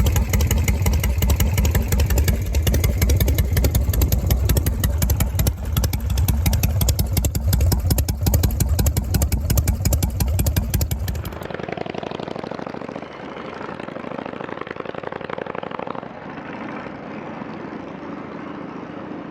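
Harley-Davidson Shovelhead V-twin running through aftermarket inner silencers: a deep, bass-heavy exhaust note made of even, rapid firing pulses. About 11 seconds in it cuts abruptly to a quieter, thinner sound without the deep bass.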